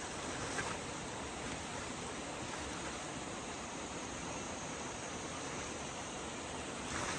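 Steady, even outdoor ambient noise, a constant hiss with no clear tone, with a faint click about half a second in and another near the end.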